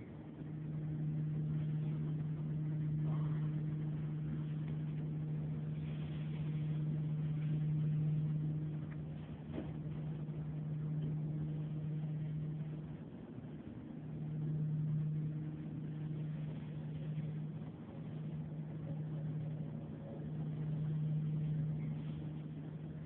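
A steady low hum at one pitch that swells and fades every few seconds.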